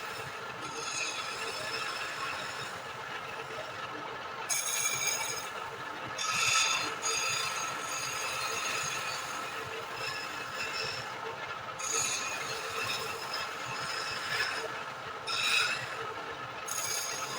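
Wood lathe running with a steady whine, and a turning tool scraping against the spinning wood in several short bursts.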